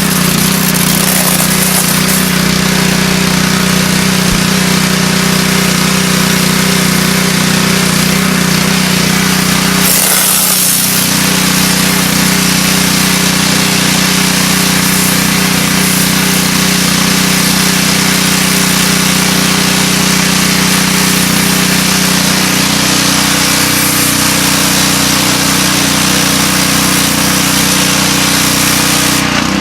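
A 2700 PSI engine-driven pressure washer running steadily: a steady engine hum under the loud hiss of the high-pressure water spray. The spray hiss drops away just before the end, leaving the engine running.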